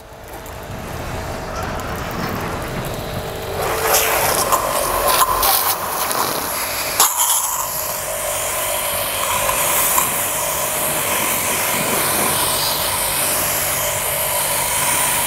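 JPT 1800-watt electric pressure washer running, its water jet spraying and hissing against a car's body as it rinses off foam. The spray gets louder about four seconds in, with one sharp click a few seconds later.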